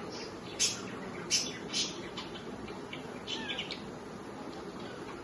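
Pet budgerigars chirping: a few short, sharp, high chirps, bunched in the first four seconds, over a steady background hiss.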